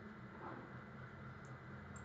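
Quiet room tone with a steady low electrical hum from the recording setup, a soft brief noise about half a second in, and two faint computer-mouse clicks near the end.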